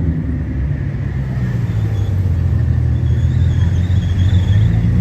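Sports car engine running with a steady low rumble at low speed, its pitch shifting slightly. A faint wavering high whistle joins about three seconds in.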